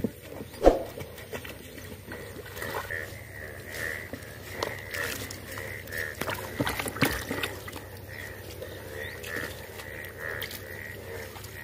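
A frog calling with short, evenly repeated notes, about two a second, over small splashes of hands moving in shallow water, with a sharp thump about a second in.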